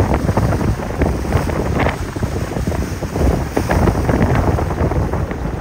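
Strong wind buffeting the microphone in irregular gusts. Beneath it is the wash of surf and a flybridge motor yacht running through choppy water.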